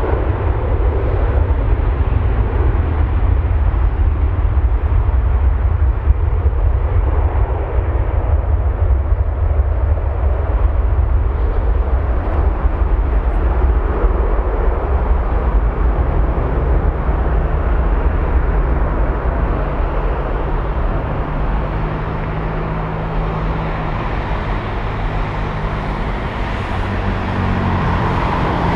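Jet engines of an Airbus A340-600 (four Rolls-Royce Trent 500 turbofans) running as the airliner taxis onto the runway, a loud, steady low rumble. In the second half a steady low hum of several tones joins in.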